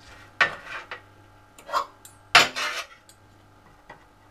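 Two metal forks clinking and scraping against a plate while shredded duck meat is pulled apart and spread onto small pancakes. There are a few separate clatters, the loudest about two and a half seconds in.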